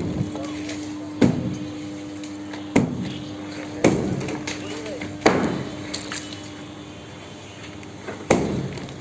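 Five heavy hammer blows striking a concrete slab to break it, single sharp strikes spaced irregularly about one to three seconds apart, each with a brief ringing decay, over a steady low hum.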